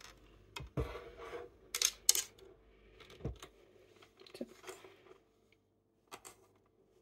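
Scattered light clicks, taps and rustles of hands pulling spiralized zucchini strands off a plastic spiralizer and gathering them on a wooden cutting board. The sounds thin out about five seconds in, with one more tap near the end.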